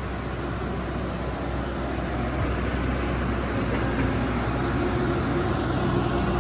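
Caterpillar 312D tracked excavator's diesel engine running steadily, growing gradually louder.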